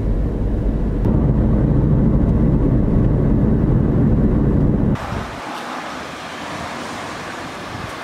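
A car driving at road speed, heard from inside the cabin as a steady low rumble of engine and tyres. About five seconds in it cuts off abruptly to a quieter, even outdoor hiss.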